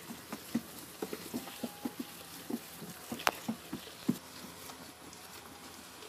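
Goats feeding from plastic troughs of chopped green fodder: irregular short clicks and rustles from their eating, several a second, with one sharper knock about three seconds in.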